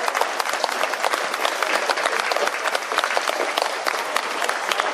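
Many people clapping steadily: a dense, even applause.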